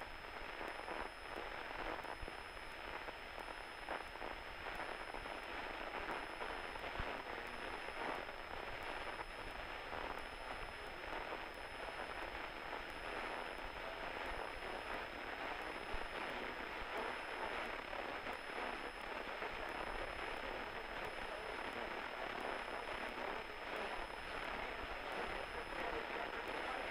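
Single-engine propeller plane at full power climbing out after takeoff, heard through the headset intercom as a steady hiss with faint crackle. A faint steady high tone runs over it.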